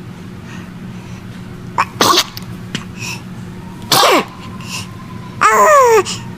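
A baby sneezing twice, about two seconds apart, then a short loud high-pitched vocal sound falling in pitch near the end.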